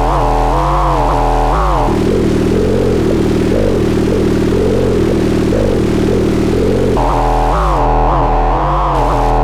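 Arturia Buchla Easel synthesizer playing a sustained, overtone-rich drone whose pitch swoops up and down in a steady repeating cycle. About two seconds in it changes to a lower, busier wobbling tone, then returns to the first sound near the end.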